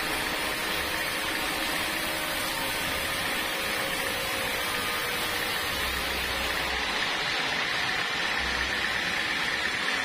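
Band sawmill's blade cutting lengthwise through a large block of hard, dry wood, with the saw's motor running under it: a steady, even high hiss from the blade in the cut.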